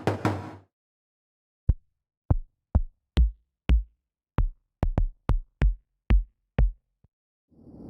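UJAM Usynth Pixel software synth playing retro video-game console drum sounds. A looping drum pattern cuts off, then about a dozen single hits with a deep thud are played by hand at uneven spacing, and a noisy swell rises near the end.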